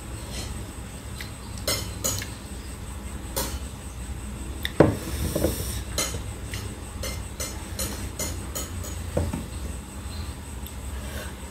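Ceramic plate and dishes clinking and knocking as food is handled, a scattering of light clicks with one louder knock about five seconds in.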